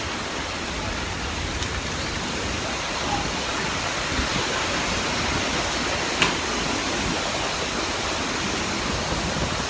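Hurricane wind and rain, a steady, loud rush of noise with no let-up, and one brief sharp click about six seconds in.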